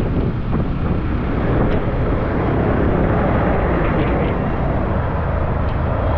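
Steady wind and road noise while riding a Yamaha Aerox 155 scooter: wind rushing over the microphone, with the scooter's engine running underneath.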